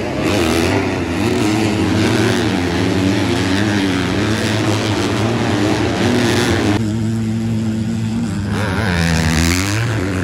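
Motocross race bikes' engines revving hard on the track, several at once, their pitch rising and falling with throttle and gear changes. Near the end one engine's pitch dips and then climbs again.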